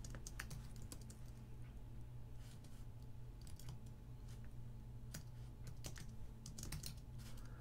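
Typing on a computer keyboard: faint, irregular key clicks in small clusters, a few keystrokes at a time.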